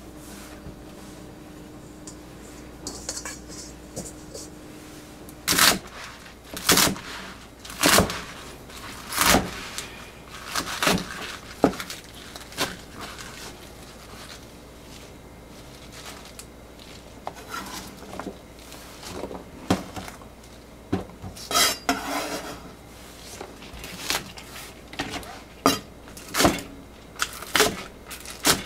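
Kitchen food preparation: irregular knocks and clatter of kitchenware and utensils. Near the end a kitchen knife chops green onions on a plastic cutting board.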